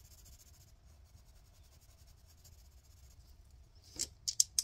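Coloured pencil scratching on paper as a box is coloured in, faint. About four seconds in come a handful of sharp clacks as two dice are rolled onto the table.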